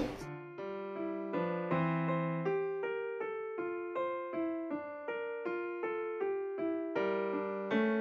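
Solo piano music: a gentle, steady run of notes, each struck and left to fade, a couple of notes a second.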